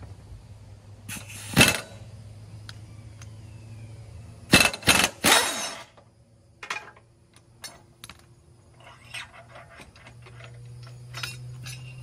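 Impact wrench hammering in short bursts, loosening a mower blade bolt: one burst about a second in, then three quick bursts between about four and a half and six seconds. Scattered light metallic clicks follow.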